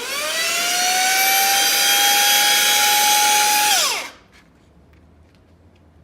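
Handheld vacuum cleaner's brushless DC motor spinning up with a rising whine and running steadily at high speed, in power mode at 50,000 RPM. It then winds down and stops about four seconds in, its whine falling away.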